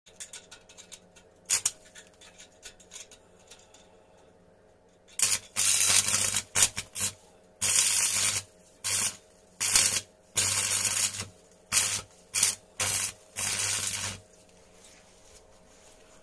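Electric arc welding on a car's cracked muffler hanger: the arc crackles and buzzes with a low hum under it, in a series of short strikes and longer runs that stop and restart over a dozen times from about five seconds in until near the end.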